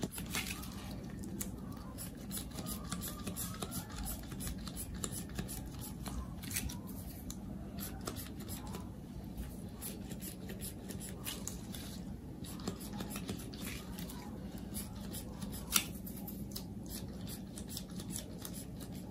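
Faint, scattered clicks and rustles of gloved hands handling a small glitter sprayer, over a low steady hum, with one sharper click about three-quarters of the way through.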